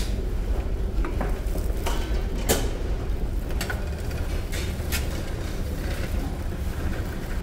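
Sharp metallic clicks and clatter of buffet handling: a ladle in a soup warmer and the metal door of a toaster oven being pulled open. The loudest click comes about two and a half seconds in, over a steady low rumble from the ship.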